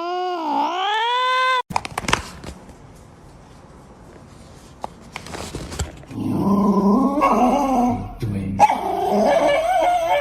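A cat yowls in a long call that slides down and back up, then breaks off suddenly under two seconds in. After a few quieter seconds of scattered clicks, a dog vocalises with loud, wavering whining calls near the end.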